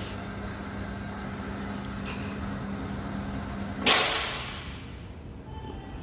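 A single rifle shot about four seconds in: one sharp crack with a short ringing tail. Before it there is a steady low hum.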